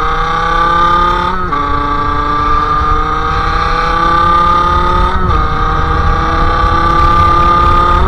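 Sherco SM-R 50's 50cc two-stroke engine through a KRM exhaust, pulling up through the gears. The pitch climbs slowly in each gear and drops at each upshift: about a second and a half in, about five seconds in, and again at the very end.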